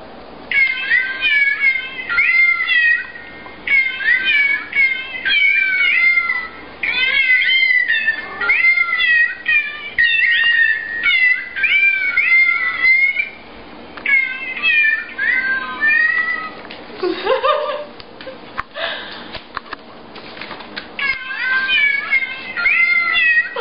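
A novelty birthday card's sound chip plays a tune made of recorded cat meows, short pitched calls repeating in a steady rhythm. Partway through, the tune breaks for a lower, drawn-out meow and some rustling, then starts again near the end.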